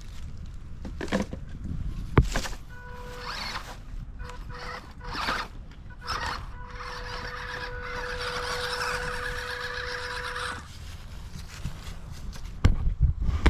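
Small RC crawler's electric motor and gears whining as it drives over sticks, with sharp knocks and clatters from the tyres and chassis hitting branches; the whine holds steady for about four seconds in the middle before cutting off.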